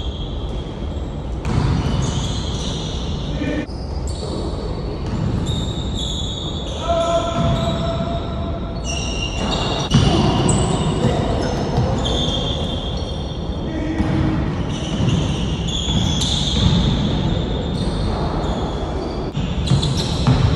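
Basketball bouncing on a court, with players' voices.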